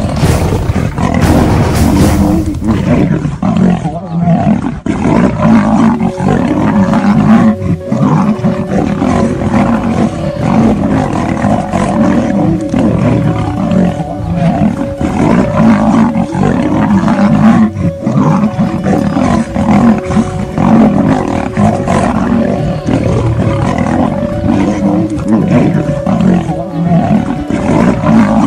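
A lion and a tiger roaring continuously as they fight, with no pause.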